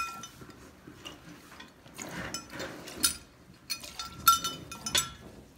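Squirts of milk from hand-stripping a cow's teat hitting the bottom of a stainless steel milk pail: a few sharp metallic strikes with the pail ringing briefly after each, spaced unevenly. The thin, scattered squirts are the last milk being stripped from nearly empty teats at the end of milking.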